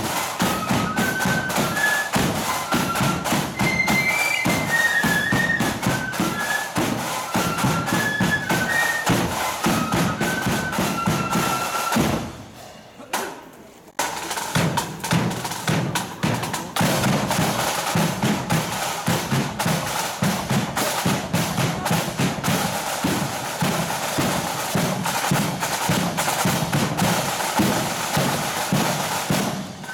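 Marching flute band playing a tune on flutes over side and bass drums. About twelve seconds in the tune stops and the sound briefly drops away, then the drums alone carry on beating a march rhythm.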